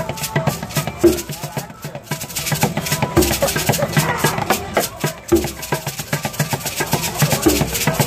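Hand percussion played live: a ridged wooden guiro scraped in a fast, rattling rhythm, with a hand drum giving a deep hit about every two seconds.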